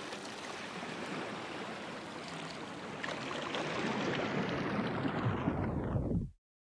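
A steady rushing noise like sea surf, swelling over the last couple of seconds, then muffled by a falling filter sweep and cut off suddenly about six seconds in.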